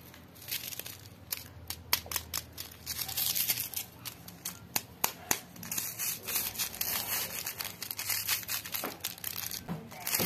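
Foil instant-coffee sachets crinkling in the hands and being torn open, a dense run of quick rustles and sharp clicks.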